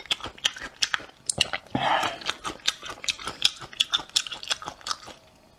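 Close-miked wet chewing of a mouthful of food, with many small sharp mouth clicks. It dies away near the end.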